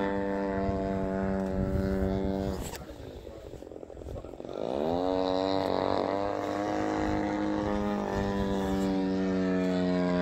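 Extreme Flight Laser RC aerobatic model airplane's motor and propeller droning at a steady high throttle. About two and a half seconds in the throttle is chopped back to a low idle; about four and a half seconds in it opens up again with a rising pitch and settles back into a steady drone.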